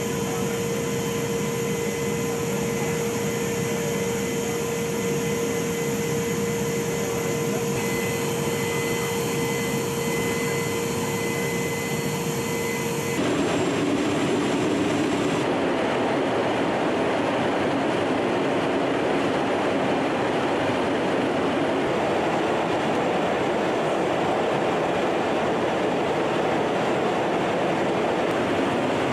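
Steady drone of a military transport aircraft's engines, with a constant hum over a rushing noise. About 13 seconds in it cuts suddenly to a slightly louder, more rushing noise without the hum.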